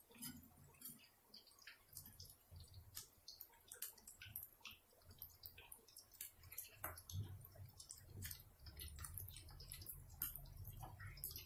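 Sardine-and-egg fritters frying in shallow oil in a wok: faint, irregular crackling and popping of the hot oil.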